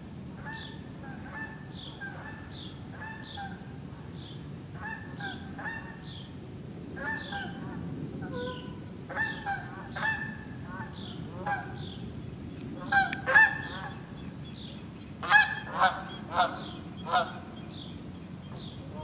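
A flock of geese honking: many short, repeated calls, getting louder in the second half, with the loudest honks bunched between about 13 and 17 seconds in.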